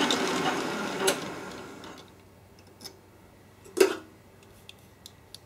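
Metal lathe spinning down after boring out a steel sleeve, its running noise fading away over about two seconds. A click about a second in, then a single sharp knock a little under four seconds in and a few light ticks.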